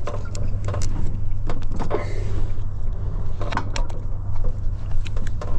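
Batter-coated trout frying in hot oil, with irregular crackles and pops over a steady low rumble.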